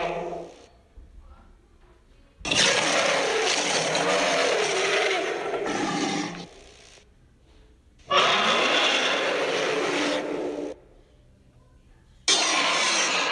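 Werewolf-kaiju monster roars from a sound-effects reel: the tail of one roar in the first half second, then three loud roars of about two to four seconds each with short quiet gaps between, the last starting about a second before the end.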